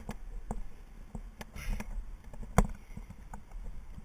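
Scattered clicks and knocks of abseiling: the metal figure-eight descender and karabiner knocking against the rope while the feet scuff the concrete wall, with a brief scrape a little over one and a half seconds in and one louder knock about two and a half seconds in.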